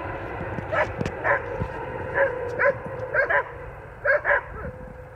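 A dog barking in short, high yaps, some in quick pairs, about ten in all. Under them runs a faint steady drone with low rumble that fades away: the cargo plane receding after its low pass.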